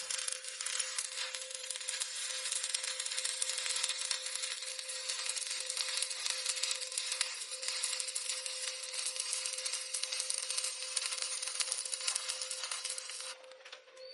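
Stick-welding (SMAW) arc crackling and sputtering steadily as a bead is run, with a steady hum underneath; the arc breaks off near the end.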